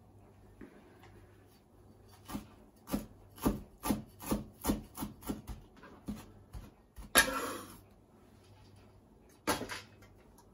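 Knife chopping parsley on a cutting board: a run of quick chops about three a second, a short scrape about seven seconds in, then a couple more chops near the end.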